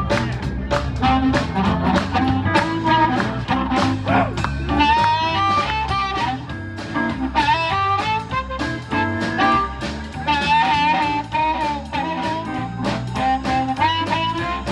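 Live blues band playing an instrumental break in a swinging shuffle, drums keeping a steady beat under a lead line of bent, wavering notes.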